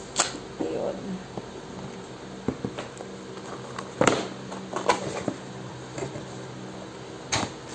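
Cardboard pistol box being unsealed and opened by hand: scraping at a stuck sticker seal, then the lid being slid off, giving scattered short taps, scrapes and cardboard rustles. A steady low hum runs underneath.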